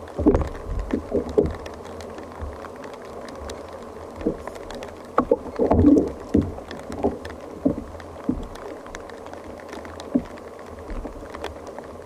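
Irregular knocks and water slaps against a fishing kayak's hull, loudest just after the start and again around five to six seconds in, with scattered faint ticks in between.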